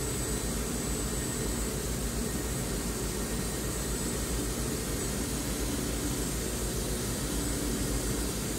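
Steady hum and hiss of a 2001 Walter Helitronic five-axis CNC tool and cutter grinder running with its axes powered while the rotary C axis swivels the workhead table.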